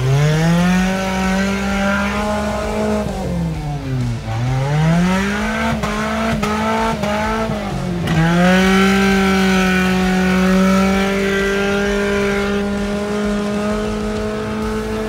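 Small 4x4's engine (a Suzuki Samurai) revved hard and held high while its tyres spin through deep mud. The revs drop and climb again about four and eight seconds in, and a few sharp knocks come around the middle.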